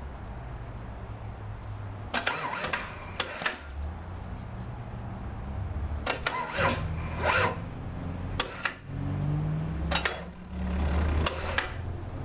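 Starter motor cranking an Isuzu 6BD1 six-cylinder diesel, which turns over but does not fire because it has no fuel. The starter is pulling about 345 amps on batteries that aren't quite up to it. Sharp clicks or knocks sound over the cranking about a dozen times.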